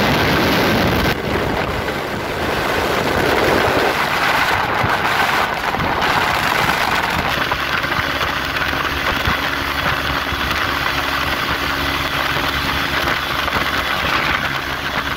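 Motorcycles riding at road speed: engines running with a steady hum under loud wind and road noise, the engine note coming through more clearly from about halfway on.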